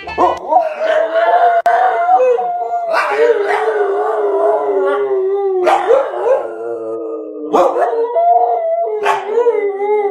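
Dogs howling together in long, drawn-out howls, with short sharp barks breaking in every couple of seconds.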